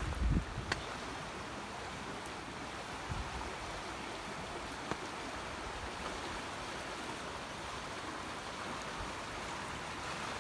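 Steady rushing of fast-rising floodwater, with a few faint ticks.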